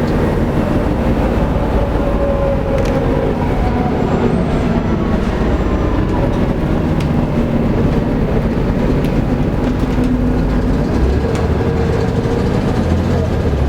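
Volvo B7TL double-decker bus's six-cylinder diesel engine running as the bus drives, heard from on board: a steady engine drone with road and body noise and a few scattered sharp ticks. The low drone grows stronger about eleven seconds in.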